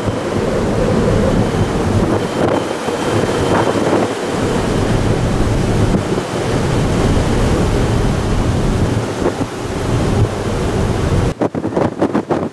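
Strong wind buffeting the microphone on a ferry's open deck, with the rush of a rough sea under it. About eleven seconds in, the low rumble drops away and the wind comes in choppier gusts.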